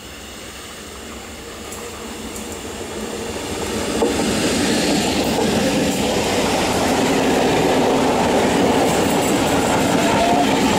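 A 12-coach electric multiple unit (EMU) local train approaching and then running past close by. It grows steadily louder over the first four seconds, then holds as a steady rumble of wheels on the rails while the coaches go by.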